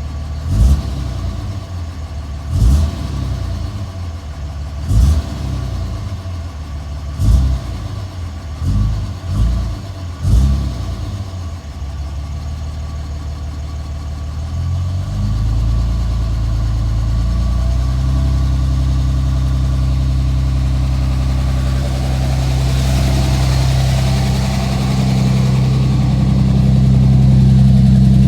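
A 2007 Dodge Ram's 5.9 Cummins inline-six turbo-diesel running with a rough idle. It surges unevenly every second or two for about the first ten seconds, then holds steadier at raised revs that step up a few times toward the end.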